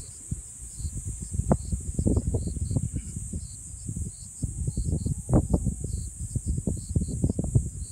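Insects chirping: a steady high drone with a regular chirp about two or three times a second, over gusts of wind buffeting the microphone.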